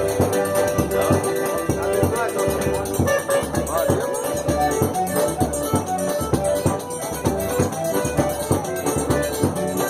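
Forró dance music playing with a steady quick beat, percussion over sustained melody lines.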